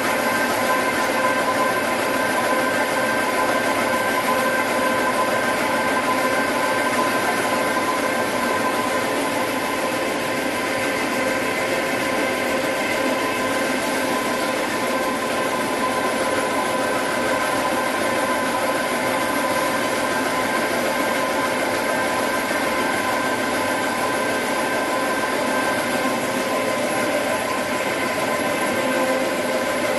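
Dry offset cup printing machine with eight colour heads running steadily. It makes a constant mechanical drone with several steady whining tones over a dense, even clatter.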